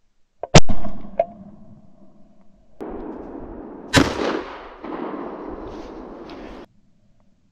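Two shotgun shots, about three and a half seconds apart, from a break-action shotgun during a roe deer hunt. Each is a sharp bang with a fading echo, and the first is the louder. A short click follows about half a second after the first shot, and a steady hiss surrounds the second shot, starting and stopping abruptly.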